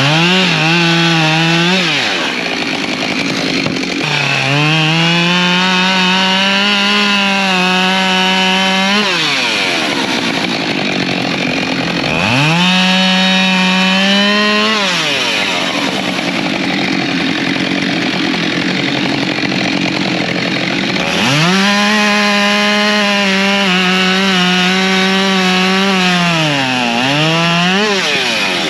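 Husqvarna 592 XP two-stroke chainsaw cutting firewood, revved to full throttle in repeated long bursts of a few seconds each. Between bursts the engine drops back off the throttle and the pitch falls.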